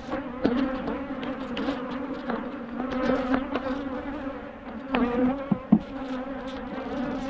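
Honeybees buzzing in a steady, pitched hum around an opened hive; the old bees are a bit aggressive. A few short knocks sound over the buzz, the sharpest a little before the end.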